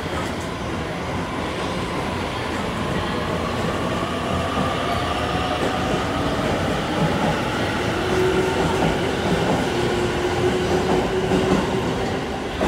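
Electric limited express train pulling out and gathering speed past the platform. Steady running rumble with a faint motor whine that slowly rises in pitch, growing a little louder toward the end as the last car goes by.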